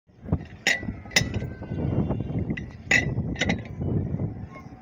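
A steel box spanner on a long T-bar clinking and scraping against a truck wheel hub as it is turned on a bolt: about five sharp metallic clinks with a short ring, and rough metal scraping between them.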